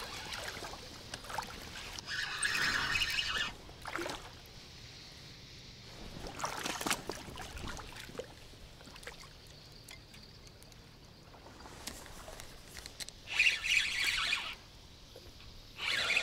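Spinning reel on a feeder rod wound in several short spells of whirring, the longest about a second near the end, with a faint steady hush between.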